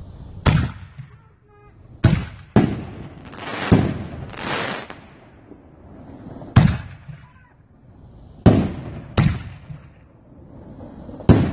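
Black Widow 5-inch canister shells by RGS firing from mortars and breaking overhead: about eight sharp booms at uneven spacing, some in quick pairs, each trailing off in an echo.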